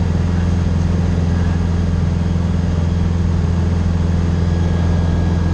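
Engine and propeller of a single-engine light aircraft droning steadily, heard from inside the cockpit.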